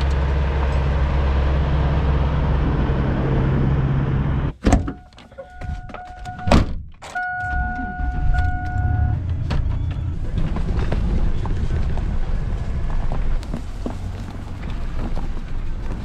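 A Peterbilt grain semi's diesel engine running steadily as it drives past on the road. After a cut, a few door and key thunks inside a pickup cab, a steady dashboard warning tone sounding twice, then the ignition turned and the pickup's engine running.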